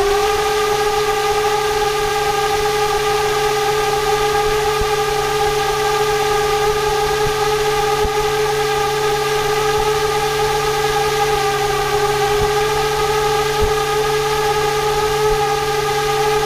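Homemade radial brushless motor spinning a plastic turbine fan at a steady high speed: one held high-pitched whine with overtones and a lower hum, over a hiss of air.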